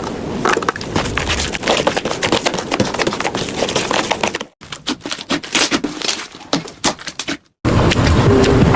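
Slime being squeezed and worked by hand, giving rapid crackling and popping clicks. The crackle cuts out abruptly about four and a half seconds in, resumes more sparsely, then cuts again just before a louder, fuller stretch of sound near the end.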